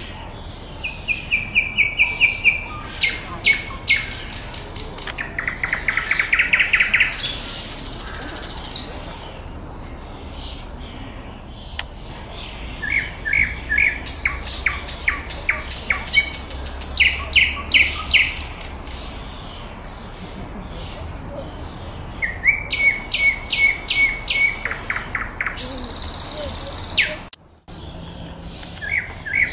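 Nightingale singing: phrases of rapid repeated notes, some high and clicking, others lower and buzzing, with short pauses of a second or two between phrases.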